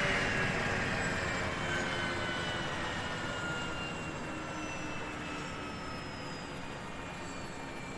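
Helicopter turbine engine winding down after shutdown: a whine that slides slowly lower in pitch and fades steadily.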